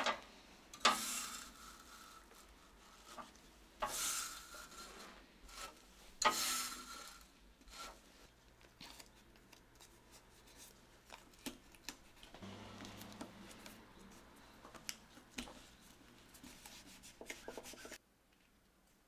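Stiff-bristled brush swept along stretched silk floss: three long brushing swishes, then softer rubbing, rustling and small clicks as the silk strips are handled by hand.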